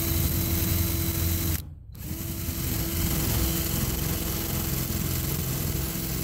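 Cordless drill driving a screw through a corrugated metal roof panel, the motor running at a steady pitch. It stops briefly about a second and a half in, then runs again.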